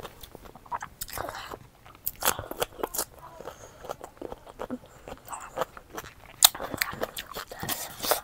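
Close-miked mouth eating sounds: irregular wet chewing, smacking and crunchy bites, with the loudest click about six and a half seconds in.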